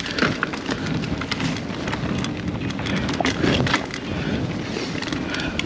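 Rocky Mountain Instinct A10 full-suspension mountain bike ridden over rough trail: tyres crunching over dirt and rocks, with many quick knocks and rattles from the bike over the bumps.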